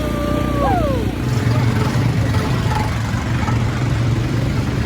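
ATV quad bike engine running with a steady low rumble. A voice calls out near the start, holding a note and then falling away.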